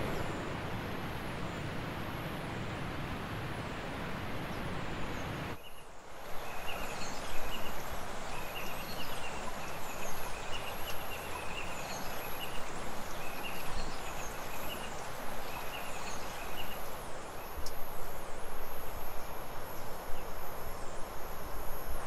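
Outdoor nature ambience. A steady noise runs for the first six seconds or so and cuts off suddenly. Then comes a high chirping that repeats about twice a second, with runs of short repeated calls over it for about ten seconds.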